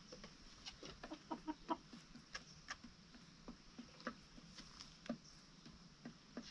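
Chickens clucking softly, with a cluster of short clucks about one to two seconds in, among scattered light ticks and taps.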